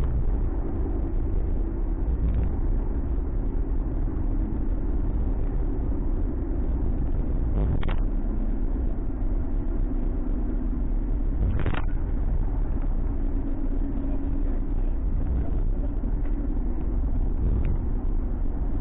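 Ford Mustang cruising in traffic, heard from inside the cabin: a steady low rumble of engine and road noise with a faint hum. A short knock comes about eight seconds in and another about four seconds later.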